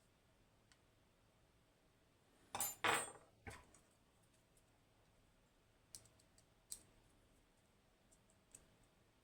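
Small metal lock parts and tools clinking and rattling as the lock is taken apart: a burst of loud clinks about three seconds in, then a few light ticks.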